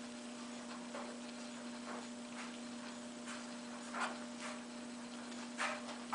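A low, steady hum with faint, irregular soft ticks scattered through it.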